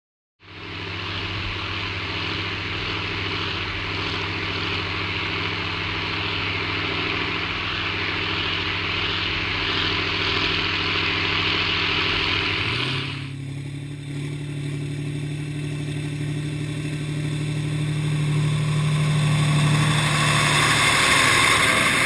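Diesel engines of big articulated tractors, a Kirovets K701 and a Rába 300, running steadily under load while ploughing. The sound comes in about half a second in. At about 13 seconds it changes suddenly to a deeper, stronger engine note that gets louder near the end.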